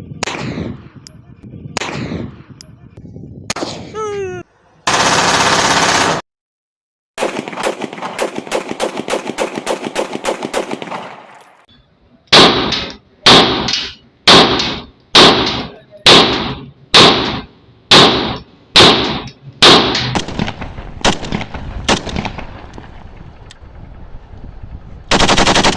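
Pistol firing: a few spaced shots, then a fast run of cracks, then about a dozen loud shots fired a little under a second apart. Two short blasts of loud, hissy noise break in, the first cutting off into a moment of silence.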